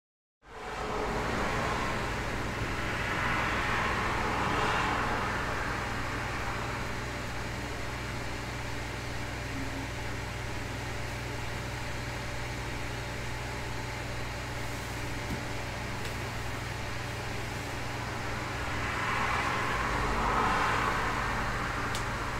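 Steady home-office room noise with a low hum, over which two cars pass by, one a few seconds in and one near the end, each swelling and fading away.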